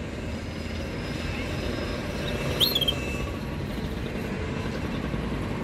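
A canary gives one short chirp about two and a half seconds in, a quick note that sweeps up and then drops, over a steady low background rumble.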